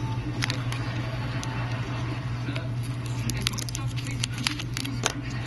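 Scattered small clicks and taps from hands handling phone parts on a work surface, growing more frequent after about three seconds, over a steady low hum.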